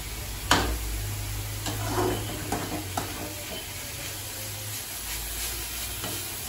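A metal ladle stirring and scraping a moringa leaf and flower stir-fry in an aluminium kadai, with a light sizzle. The ladle knocks against the pan several times, loudest about half a second in.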